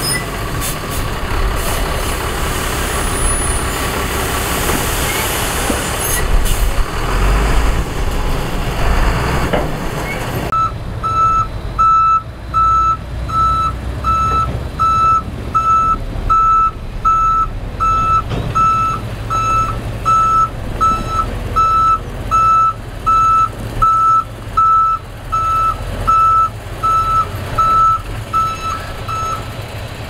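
Heavy diesel machinery running with a dense rumble that swells for a few seconds around the middle of the first third. Then, about ten seconds in, a reversing alarm starts: a steady single-pitch beep, about three every two seconds, over the engine's lower running sound, stopping just before the end.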